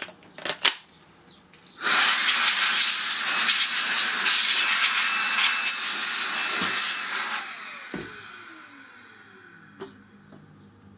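Makita 40V cordless dust blower switched on with a rising whine, blowing a steady rush of air for about five seconds, then switched off, its fan whining down in pitch as it spins to a stop. A few light handling clicks come just before it starts.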